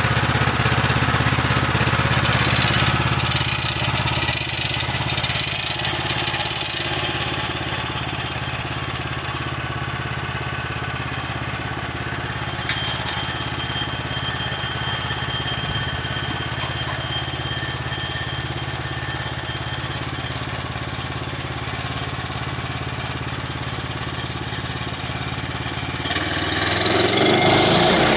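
Small single-cylinder gas engine of a Woodland Mills HM122 portable bandsaw sawmill running steadily, freshly started and not yet cutting. Near the end its note drops and the sound gets louder.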